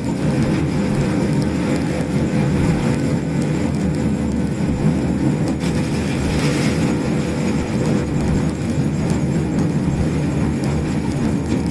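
COMS electric microcar driving, its motor and road noise steady, with a repeating 'kyu-kyu-kyu' squeak running through it. The cause is unknown; the owner fears it means the car is breaking.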